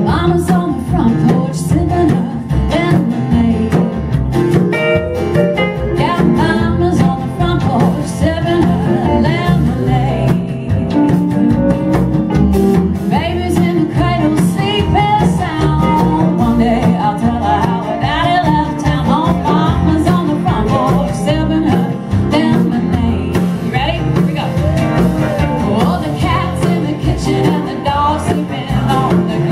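Live country song: a woman singing lead over her own acoustic guitar.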